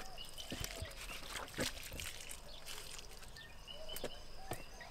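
Faint, scattered short chirping calls of small animals, with a few soft clicks.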